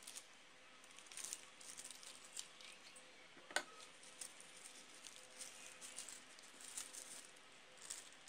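Faint rustling and crinkling of tissue paper handled as petals are pressed and glued around a paper rose's centre, in short soft scratchy strokes, with one sharp click about three and a half seconds in.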